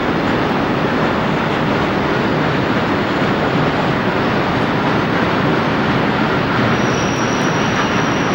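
Diesel train running past, a loud steady rumble and rush of noise, with a faint high-pitched tone, likely wheel squeal, coming in near the end.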